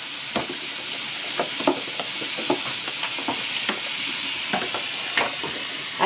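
Seasoned chicken pieces sizzling in a pot over a wood fire: a steady frying hiss with scattered short pops and knocks.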